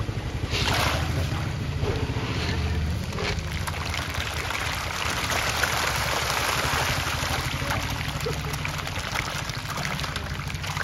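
Many fish splashing and thrashing at the water's surface in a feeding frenzy over thrown pellets, a dense, continuous churning splash, with a steady low rumble underneath.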